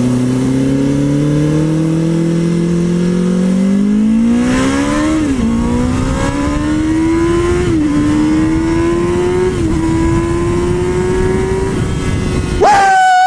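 Inline-four sportbike engine accelerating through the gears: the pitch climbs steadily and drops briefly at each upshift, about five, eight and ten seconds in, then holds at a steady cruise. Near the end a louder, higher steady tone cuts in over it.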